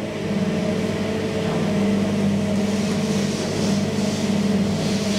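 Traction elevator car travelling down its shaft: a steady low motor hum with a hiss of air and guide-rail noise that swells partway through.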